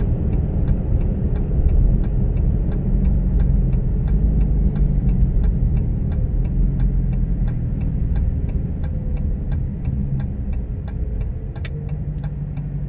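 Cabin road and engine noise in a Dodge Challenger R/T driving and then slowing into stopped traffic: a steady low rumble that eases off after about ten seconds. A light ticking runs about three times a second throughout, and there is a single sharp click near the end.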